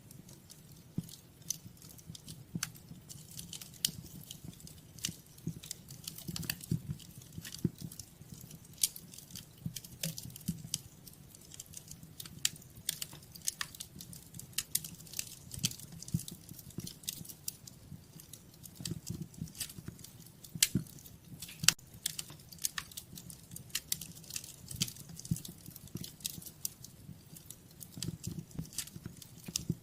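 Wood fire crackling in a fireplace: irregular sharp snaps and pops over a low, steady rumble of the flames.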